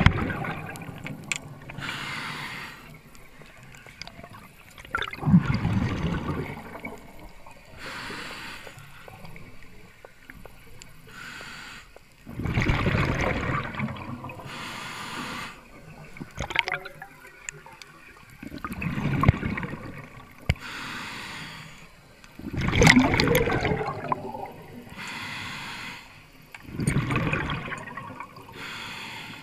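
Scuba diver breathing through a regulator underwater: a short hiss on each inhale, then a loud gurgling rush of exhaled bubbles, a breath every five or six seconds.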